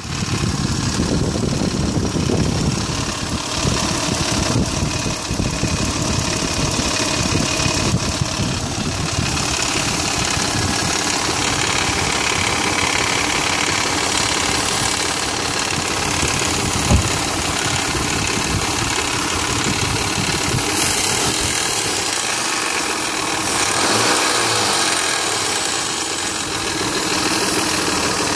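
Mitsubishi Montero Sport 3.0 L V6 idling cold with a steady clatter from the timing belt: the timing belt tensioner was left loose, and the owner traced the noise to the shifted tensioner rubbing on the plastic timing cover and the belt slapping for lack of tension. One sharper knock about two-thirds of the way through.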